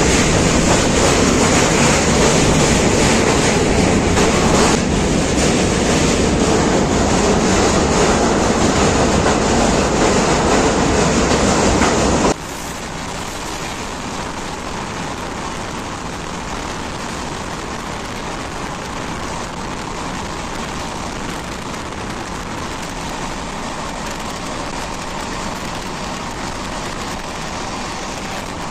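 Dhauli Express passenger train running: loud steady rushing and rail noise for about twelve seconds, then it drops suddenly to a quieter, steady running noise.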